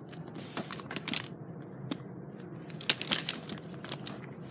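Hands fumbling with something, one-handed: irregular rustling with scattered sharp clicks and crunches, the loudest about three seconds in.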